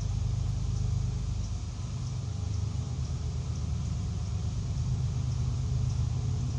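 Steady low mechanical rumble, like an engine or machine running, with faint high ticks about once a second.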